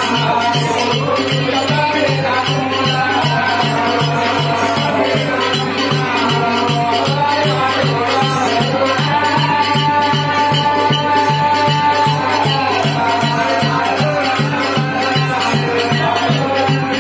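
Oggu katha ballad singing through microphones and loudspeakers, over a drum beating steadily about three times a second. One voice holds a long note about midway.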